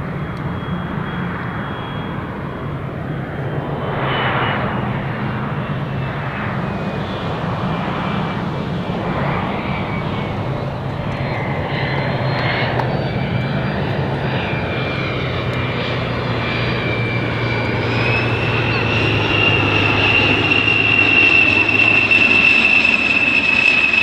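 A Fairchild Republic A-10C Thunderbolt II's twin General Electric TF34 turbofans whining as the jet flies past, growing louder toward the end. The whine's pitch sags slowly, then steps up again about three-quarters of the way through.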